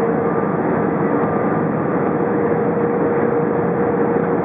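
Steady roar of engines and airflow heard inside the cabin of an Airbus A320 descending on approach, with a steady mid-pitched tone held over it.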